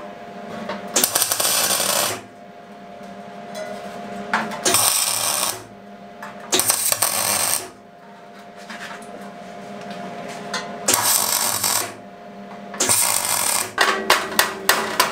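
A MIG welder laying short tack welds: five crackling, sizzling bursts of about a second each as a perforated steel sheet is welded into a thin sheet-steel box. Near the end come a few quick hammer taps on the metal.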